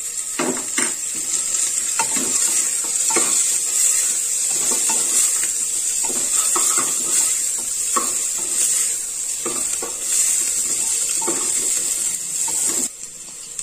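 Chopped onion, garlic and green chillies sizzling in ghee in an aluminium pressure cooker, with a wooden spatula scraping and knocking against the pot as it is stirred. The sizzling cuts off suddenly near the end.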